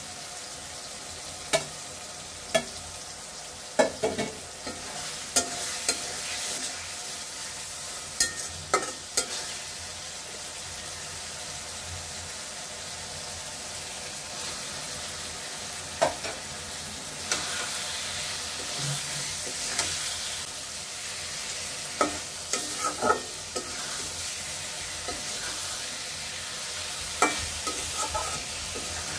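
Tomato masala sizzling in a metal karai, with a spatula stirring and scattered sharp clicks as it strikes the pan. After small fish are tipped in partway through, the sizzle is louder for a few seconds.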